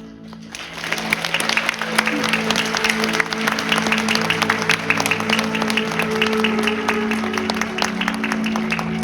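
Background music with long held chords, under a dense, even patter of clapping that starts about half a second in.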